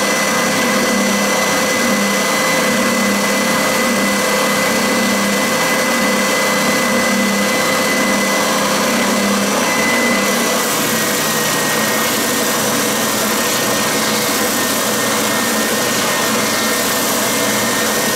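Triton TSPST450 belt sander running steadily with an 80-grit belt. About ten seconds in, a piece of wood is pressed against the belt. This adds a sanding hiss, and the motor's hum drops slightly in pitch under the load.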